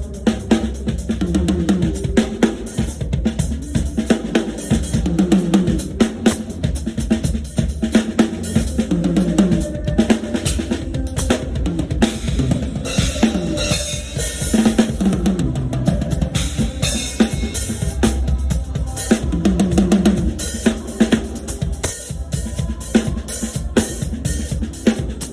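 Drum kit played continuously in a busy groove, with bass drum, snare and rimshot hits.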